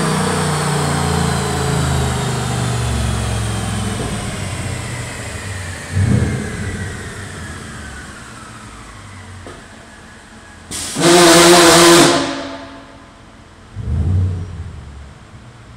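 2011 Ford Mustang GT's 5.0 V8 settling back from a dyno pull, with a high whine falling slowly in pitch as the wheels and dyno rollers coast down. The engine is blipped briefly twice, and a loud rushing noise lasts about a second between the blips.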